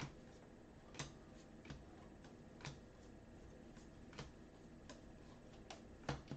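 Faint, irregular clicks and taps of trading cards being flipped and slid against one another by hand, about eight in all, spaced unevenly.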